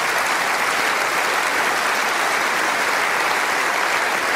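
Large seated audience applauding steadily, a dense even clapping across the hall during a pause in a speech.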